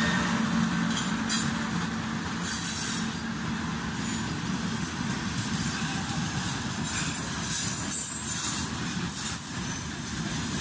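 Freight train's open gondola wagons rolling past close by: a steady rumble of steel wheels on the rails, with a few sharp knocks from the wheelsets, the loudest about eight seconds in.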